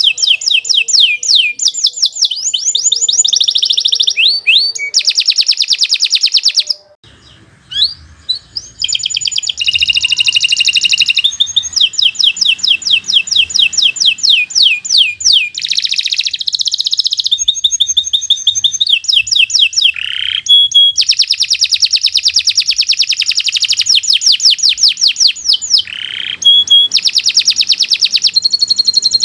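Domestic canary singing a long, continuous song of rapid trills and repeated sweeping notes, with a short break about seven seconds in and a couple of lower slurred notes later on.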